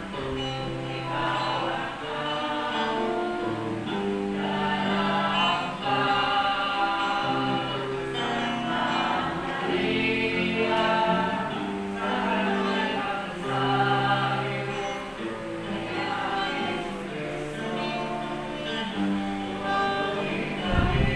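Choir singing a slow religious song with long held notes over steady low held tones, and a few low thumps near the end.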